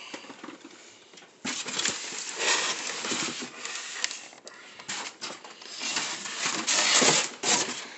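Cardboard and foam packaging rustling and scraping in irregular bursts as a toy RC dump truck is handled and lifted out of its box, starting abruptly about a second and a half in.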